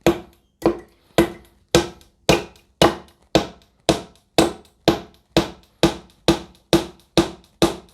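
Hammer driving a nail into the wooden birdhouse, about two blows a second, each a sharp knock with a short ring.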